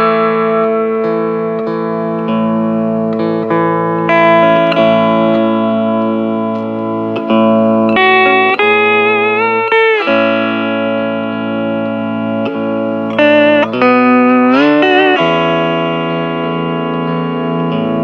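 Hawaiian steel guitar playing a slow melody, its notes sliding up into pitch and held with a wavering vibrato, over sustained low accompaniment.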